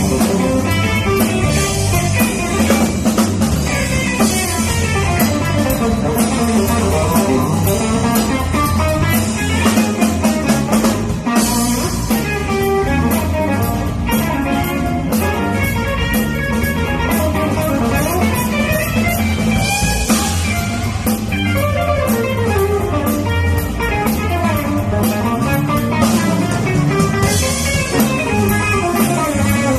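A small band plays an instrumental funk tune, with guitar over a drum kit and a strong low bass line.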